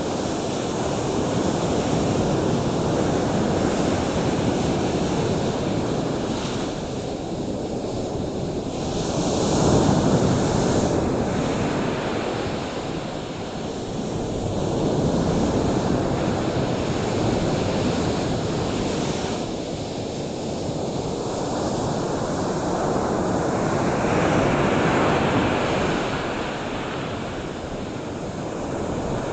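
Waves breaking: a continuous rushing that swells and ebbs every several seconds.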